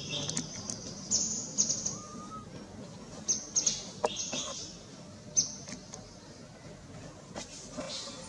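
Short high-pitched animal chirps and squeaks come in small clusters, quieter in the second half, with a few soft clicks.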